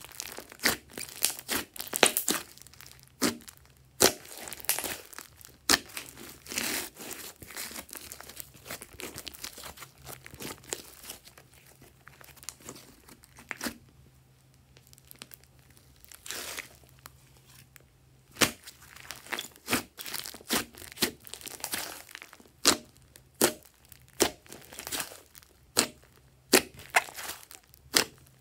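Hands kneading and squeezing thick glossy slime: irregular sticky crackles and pops as trapped air bursts out. They come in clusters, quieter through the middle and busier again in the last third.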